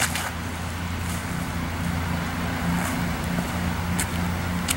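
Steady low engine hum with a slight flutter, with a short click at the start and another near the end.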